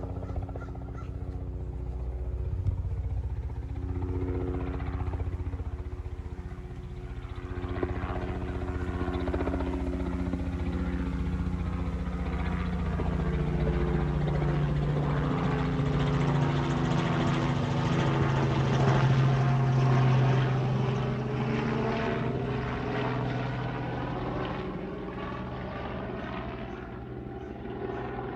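A low-flying aircraft passing overhead: an engine hum with several pitched tones that builds to its loudest about two-thirds of the way through and then fades, the tones sliding in pitch as it goes by.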